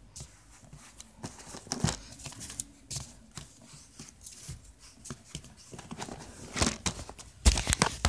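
Handling noise from a phone being propped up: rustling, scraping and small knocks against the mic, with a few louder bumps near the end.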